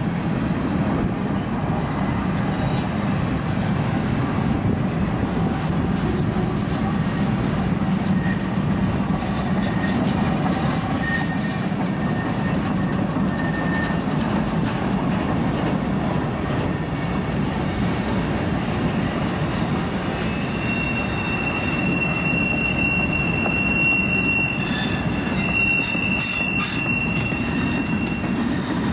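Freight cars rolling past on the rails: a steady rumble of wheels on track. About two-thirds of the way through, a high, steady wheel squeal sets in and holds, with one short break, until near the end.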